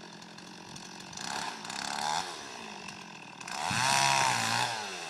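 Chainsaw revved up twice, once about a second in and again more loudly near the end, its pitch rising and falling, with the engine idling between revs.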